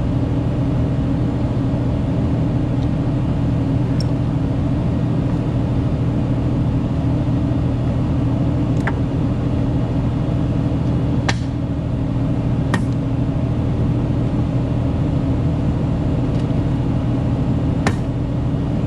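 Engine running steadily at idle, a constant low drone, with about five sharp metallic clinks of steel tools striking the rail and joint bolts scattered through it.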